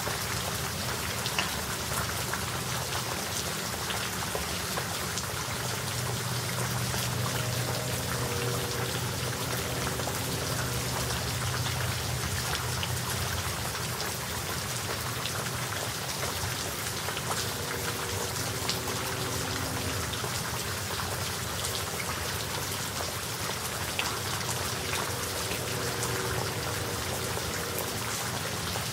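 Steady rain shower falling, an even hiss dotted with many small ticks of individual drops striking surfaces.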